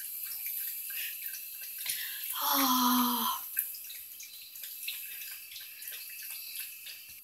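A small dog lapping water from a bowl, with faint wet splashing and drips. About two and a half seconds in, a person hums one short note, a bit under a second long.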